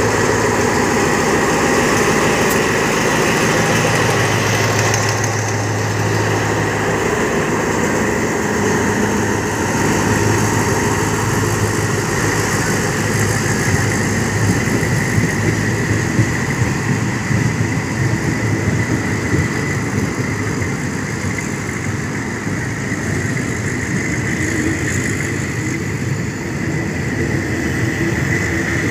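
Passenger coaches of a departing train rolling past on the rails. The engine of the Alsthom ADD-class diesel-electric locomotive hauling them drones low and fades away over the first several seconds, and a few wheel knocks come near the middle.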